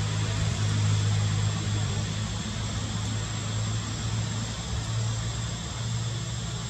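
A steady low engine-like hum over a constant hiss, with a thin high whine held above it.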